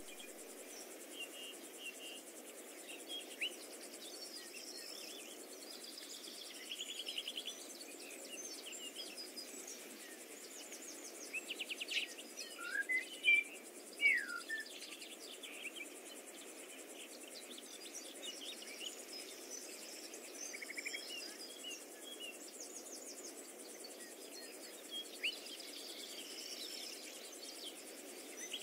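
Faint outdoor ambience: scattered bird chirps and short, rapid insect-like trills over a steady low background noise, a little busier about halfway through.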